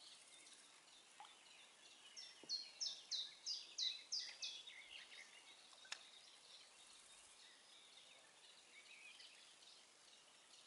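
A songbird singing a phrase of about seven quick, repeated high falling notes lasting a couple of seconds, over faint background birdsong and hiss. A single sharp click sounds about six seconds in.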